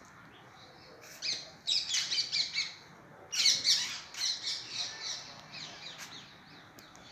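Birds chirping in quick runs of high chirps, loudest in two bursts about a second and a half and three and a half seconds in, then fainter chirping.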